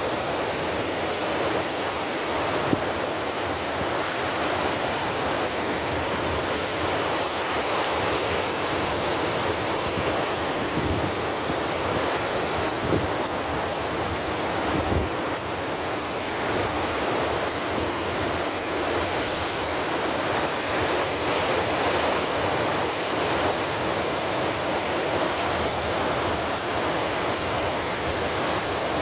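Ocean surf washing steadily, with wind buffeting the microphone in irregular low thumps.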